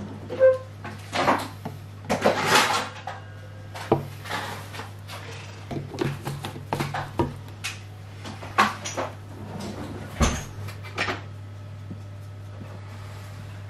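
Scattered clinks and knocks of a NutriBullet plastic blender cup against small drinking glasses as smoothie is poured, then the cup is handled and set down on the cutting board, over a steady low hum.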